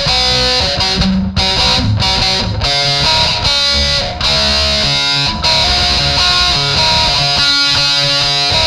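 Distorted electric guitar playing a riff of changing notes and chords, with several brief stops in the first half.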